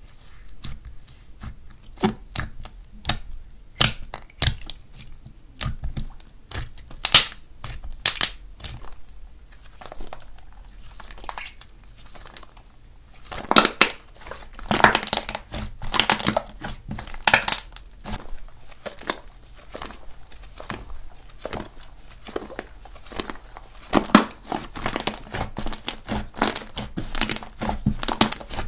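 Slime being handled, giving a rapid, irregular run of sticky clicks and pops that thickens around the middle and again near the end.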